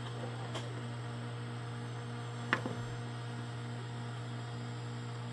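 Steady electrical mains hum from the bench test setup, with a faint tone pulsing on and off about twice a second. A single sharp click about two and a half seconds in.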